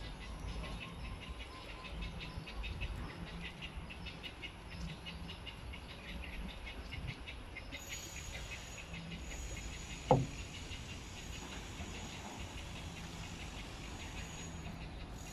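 Outdoor park ambience: a rapid, even ticking of insects for the first half, then a steady high insect drone, over a low rumble. A single sharp knock about ten seconds in.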